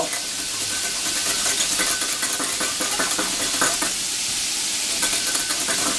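Oil sizzling steadily as battered chicken pieces deep-fry in a wok, with scattered light clicks and taps.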